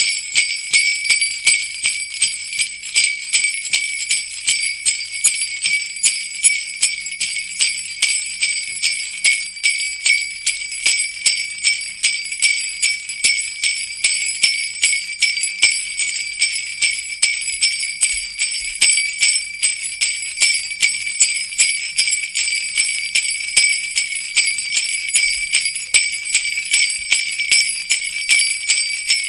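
Sleigh bells jingling continuously, shaken in a steady, even rhythm.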